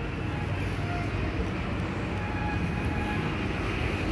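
Steady low rumble of outdoor background noise, with a few faint brief higher tones over it.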